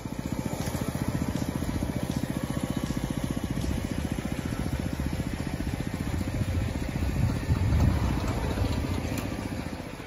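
Small engine running with a rapid, even putter, loudest about eight seconds in and fading near the end.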